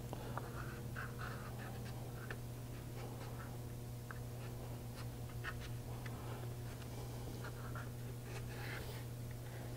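Razor blade scraping wet paint on illustration board: faint, irregular short scrapes and ticks, over a steady low hum.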